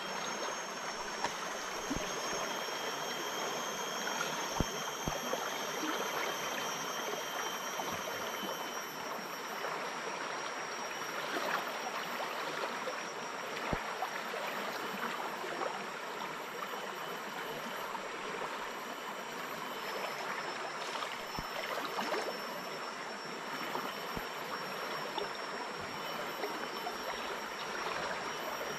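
Fast, muddy river flowing steadily past the bank, a continuous rushing wash of water, with faint steady high-pitched tones above it and a few faint clicks.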